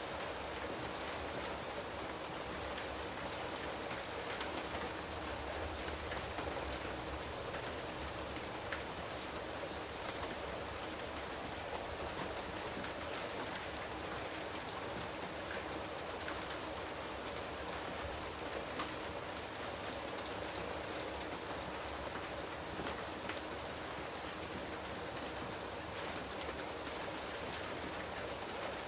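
Jungle rain falling steadily, with scattered individual drops tapping close by.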